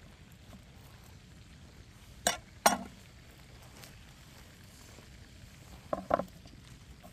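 Two pairs of short knocks, one pair about two seconds in and the other near the end: the halves of a crusty round bread loaf being handled and set down on a wooden cutting board.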